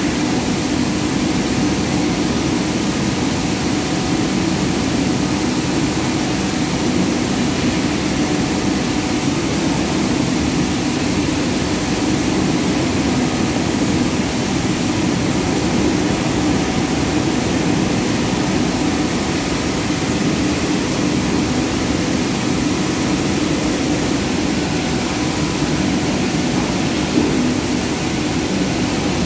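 Steady din of palm oil mill machinery running, with the rotating drum thresher turning as it strips fruit from the bunches; an even low drone with faint steady tones. One brief knock near the end.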